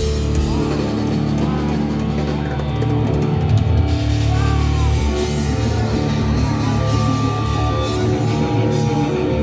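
Hard rock power trio playing live: distorted electric guitar, electric bass and drum kit, loud and continuous, heard from within the audience.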